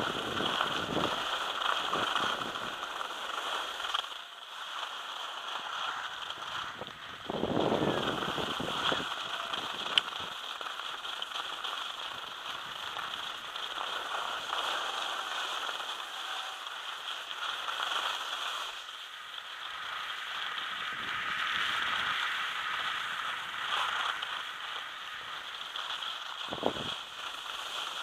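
Skis sliding and scraping over packed snow in a steady hiss, with wind buffeting the microphone in low gusts about eight seconds in and near the end, and a single sharp click about ten seconds in.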